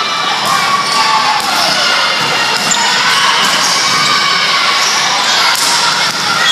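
Gym crowd of spectators and players calling and cheering steadily through a volleyball rally, with a few sharp smacks of hands and arms hitting the ball.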